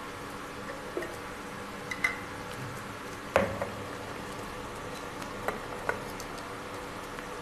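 Thick tomato-and-cream curry gravy simmering in a pan over a steady low hum, with scattered short pops of bubbles bursting at the surface. There are about half a dozen, the loudest about three and a half seconds in.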